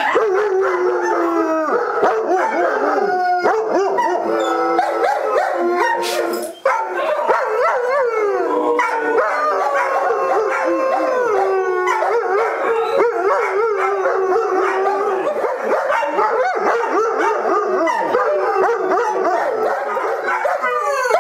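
German Shepherd dogs howling together, several overlapping voices sliding up and down in pitch, with a brief break about six seconds in.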